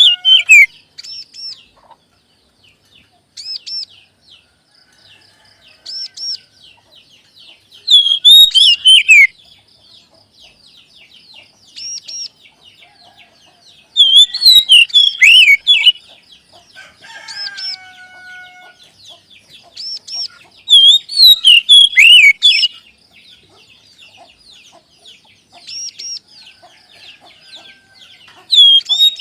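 Oriental magpie-robin (kacer) song played as a lure recording: loud clusters of rapid, sweeping whistled notes about every six to seven seconds, with shorter single phrases between them and a faint high continuous trill underneath.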